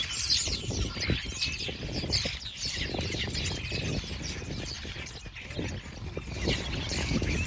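Many small birds chirping in quick, short, overlapping calls, over a steady low rumble.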